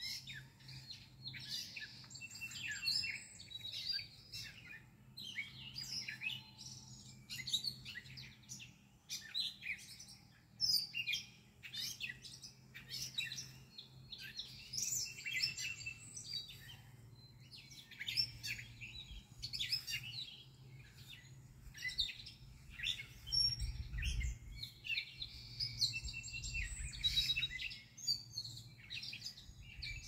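Garden songbirds singing: several birds' chirps and song phrases overlapping continuously.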